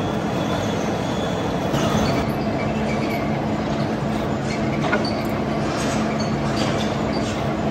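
Large old vertical turret lathe running: a steady mechanical rumble and hiss, with a low hum that joins about two seconds in and a few light ticks.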